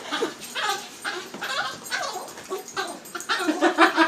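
A dog making a rapid series of short, pitched vocal sounds.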